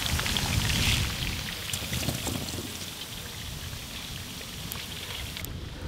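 Tuna chunks deep-frying in hot oil in a large iron wok: a dense sizzle with scattered small crackles. The sizzle drops away abruptly near the end.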